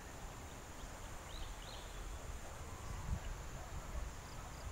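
Outdoor ambience: a low, uneven wind rumble on the microphone, with a few faint high bird chirps about a second and a half in.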